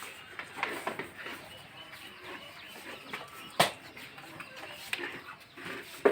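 Chickens clucking, with a single sharp knock about three and a half seconds in.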